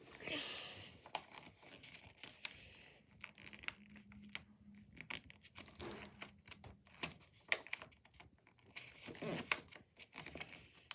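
A sheet of paper being folded and creased by hand, with irregular crinkles, rustles and sharp little clicks as the folds are pressed down.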